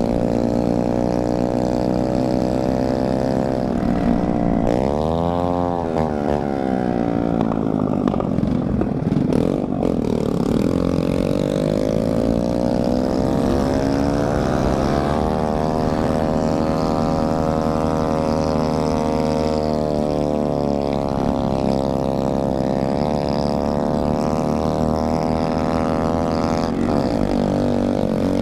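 Small motorcycle engine running while riding, its revs dropping and climbing again about five seconds in and again near ten seconds, then holding fairly steady with small rises and falls.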